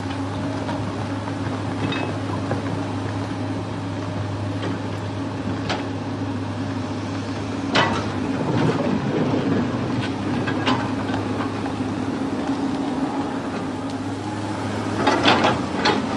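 Machinery running with a steady low hum, with a few sharp knocks scattered through and a quick run of clattering knocks near the end.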